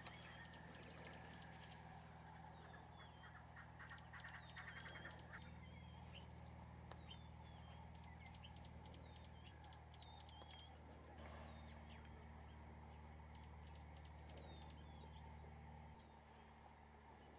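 Faint bird calls, many short wavering chirps with a brief rapid rattle a few seconds in, over a low steady hum.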